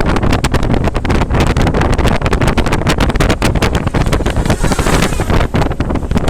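Loud wind noise on the microphone, with constant rapid gusty buffeting.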